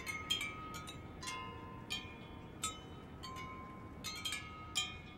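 Marching band front-ensemble mallet percussion playing a sparse opening: scattered single bell-like strikes, a couple a second at uneven spacing, each ringing on in high clear tones.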